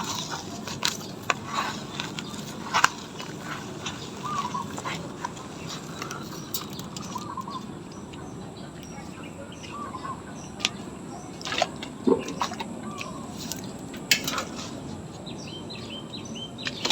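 Outdoor background noise with scattered short rustles and clicks of handling. Faint, short bird chirps come every few seconds.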